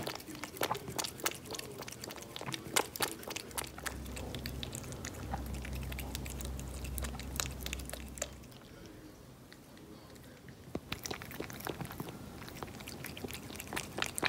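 Siamese cat lapping and slurping milk from a small dish: a quick run of wet tongue clicks, broken by a pause of about two seconds past the middle before the lapping picks up again.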